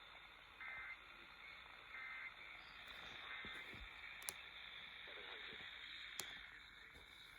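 Emergency Alert System End-of-Message signal on an AM radio broadcast: three short bursts of warbling digital data tones, about 1.4 seconds apart, faint over radio hiss and a steady high whine. A couple of sharp static crackles follow.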